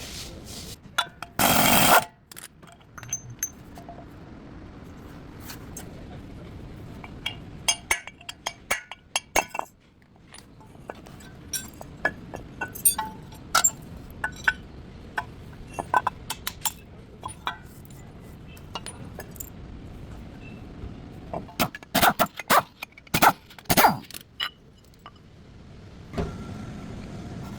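Metal hand tools and parts clinking and knocking as they are handled, in scattered single strikes. There is a short loud clatter about two seconds in and a cluster of sharper clanks near the end.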